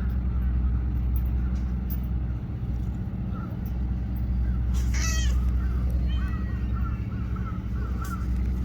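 A small tortoiseshell cat gives one short meow about five seconds in, over a steady low rumble like distant engine or traffic noise.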